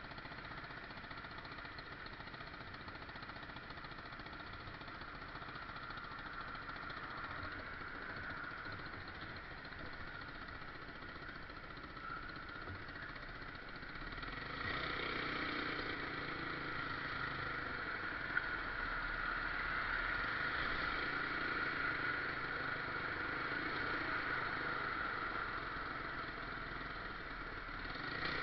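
A vehicle engine running steadily, getting louder about halfway through.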